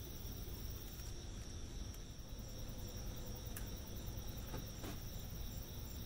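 Steady chorus of crickets, a constant high-pitched trill, over a low background rumble.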